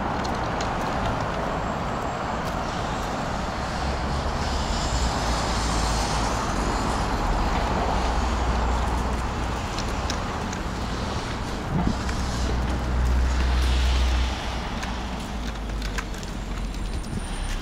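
City road traffic: a steady wash of passing cars, with a heavier low rumble that swells twice, in the middle and again about two-thirds of the way through.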